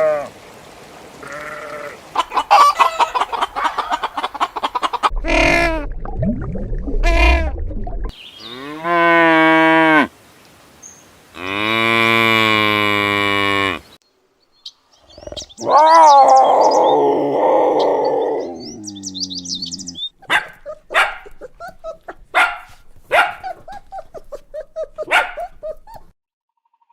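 A series of separate farm animal calls, mostly long bleats from sheep and goats, several seconds apart. A run of short, sharp calls follows near the end.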